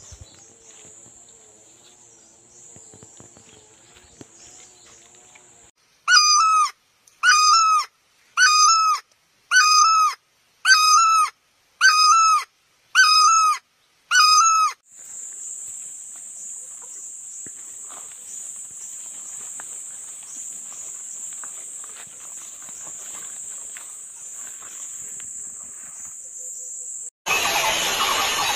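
A hornbill calling nine times, loud and evenly spaced at about one call a second, each call a short bent note. A steady high-pitched drone follows. Near the end a loud, noisy sound starts suddenly.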